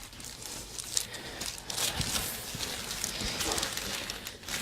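Rustling and shuffling as a patient is moved on a chiropractic treatment table, with a few faint clicks and knocks.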